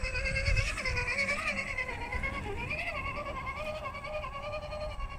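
Electric motor and gearbox of an Axial SCX10 radio-controlled scale crawler whining, the pitch rising and falling with the throttle as it crawls over rough ground, over a low uneven rumble.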